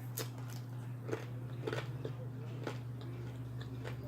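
A person biting and chewing food close to the microphone, with a handful of short, sharp crunchy clicks spread through. A steady low hum runs underneath.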